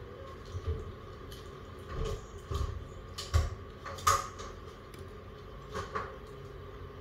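Utensils tapping and scraping on plates and dishes as people eat, in a string of short clicks and knocks, the sharpest two about three and four seconds in.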